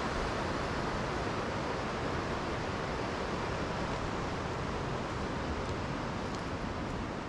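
Steady rushing of the Tirthan River flowing over rocks.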